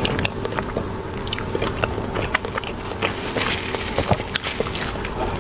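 Close-miked eating of a soft cream cheese bun: biting and chewing with many irregular small wet mouth clicks and smacks.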